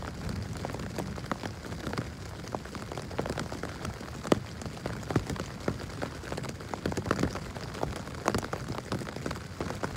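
Rain falling on a tent's fabric, heard from inside: a steady hiss of rain with many single drops striking as sharp taps.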